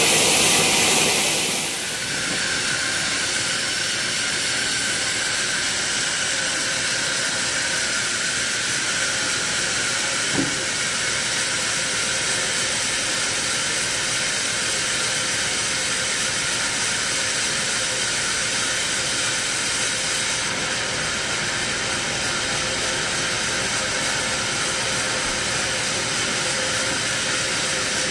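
Sawmill saw running steadily through a teak log, a continuous hissing cutting noise. A louder, brighter hiss drops away about two seconds in, and there is one short knock about ten seconds in.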